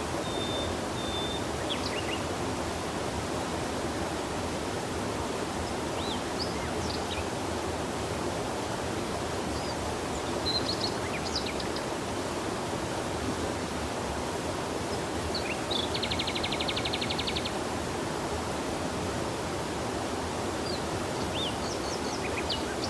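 Steady rush of flowing river water, with scattered short bird chirps and whistles over it and one rapid trill lasting about a second and a half, some sixteen seconds in.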